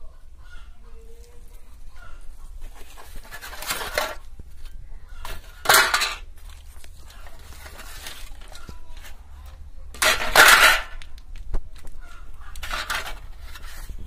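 Irregular clicking and clattering of handled objects, with four louder scraping rushes, the loudest about ten seconds in.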